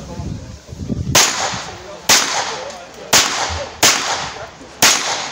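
Five pistol shots fired one at a time at targets, about a second apart, starting about a second in. Each is a sharp crack with a short echo.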